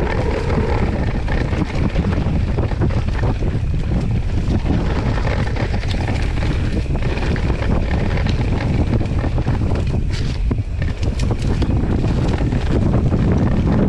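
Mountain bike rolling downhill on a dirt singletrack, with wind buffeting the microphone as a steady low rumble and many small rattles and clicks from the bike and tyres on the trail.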